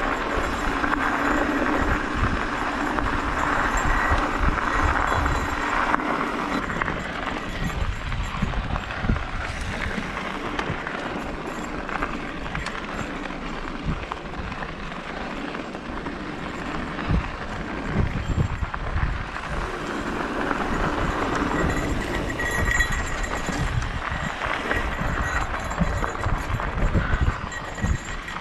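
Mountain bike riding over a dirt trail: tyres rolling on packed dirt and gravel and the bike rattling over bumps, with wind buffeting the action camera's microphone in uneven low gusts.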